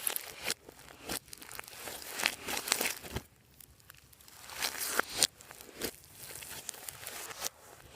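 Slime being squished and stretched by hand, giving sticky crackles and pops in uneven bursts, with a short lull about three seconds in.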